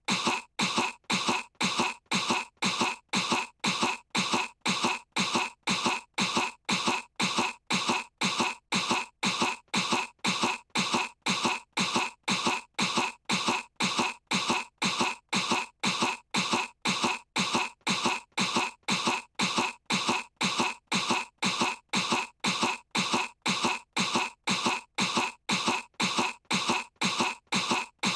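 A young girl's fake, put-on cough, the same short cough repeated over and over at an even pace of about two coughs a second.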